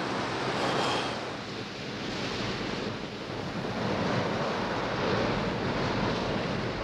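Ocean surf breaking and washing ashore, with wind, swelling and easing with the waves.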